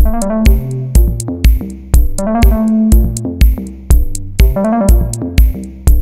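Electronic background music: a steady drum-machine beat of about two kicks a second, with synth and keyboard melody notes.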